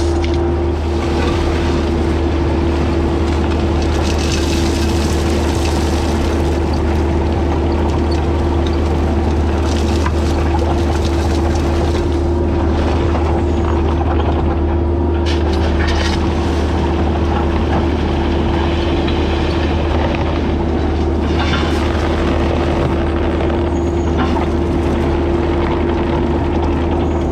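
Mini excavator's diesel engine running steadily under work, with a constant low drone and a few short rattling or hissing noises from the machine as it digs or backfills.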